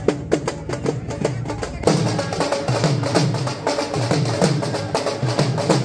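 Several dhol drums beaten with sticks in a fast, steady rhythm. The sound changes abruptly about two seconds in.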